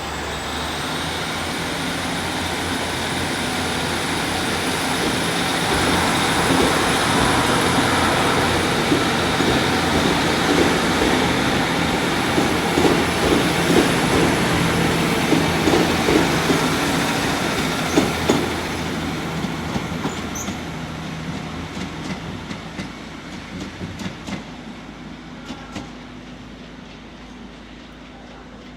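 Diesel multiple-unit passenger train pulling out of the station: its engine and wheels grow louder as it passes, with a run of clicks from the wheels over rail joints in the middle, then fade steadily as it moves away.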